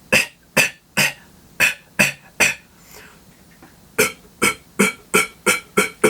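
Beatboxed cough snare: a throat-clearing snare pushed out against a held breath, with the lips rounded into an O to tighten it. It comes in two quick runs of about six sharp hits each, with a pause of about a second and a half between them.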